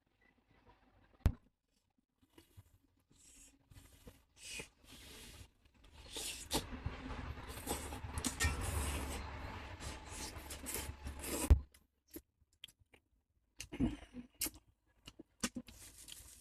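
Objects being handled close by: a sharp knock about a second in, then several seconds of rustling and scraping with small clicks, and another sharp knock near the end of the rustling.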